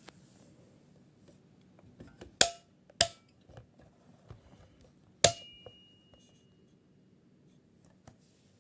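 Three sharp metallic knocks, two close together and a third about two seconds later that leaves a brief ringing tone, among softer handling clicks.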